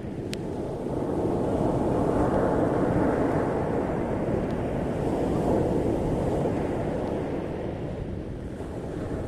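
Ocean surf washing on a beach: a continuous rush of waves that swells about two to three seconds in and eases near the end, with wind rumbling on the microphone.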